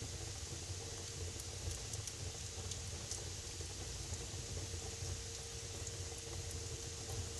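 Wood fire burning in a fireplace: a steady hiss over a low rumble, with scattered sharp crackles and pops.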